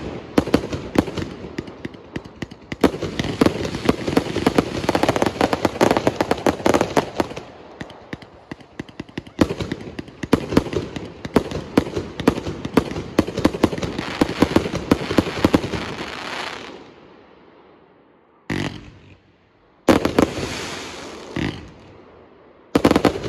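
Avalanche 238-shot firework cake firing: rapid volleys of shots and bursting stars with crackle, one on another, easing briefly about eight seconds in. The barrage dies away after about sixteen seconds, leaving a few short separate volleys near the end.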